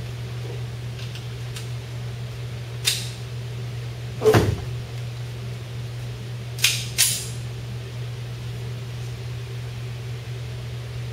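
A few sharp metallic clicks and clacks from a Norinco .45 Commander pistol being handled and readied, the loudest about four seconds in, over the steady hum of a range ventilation fan.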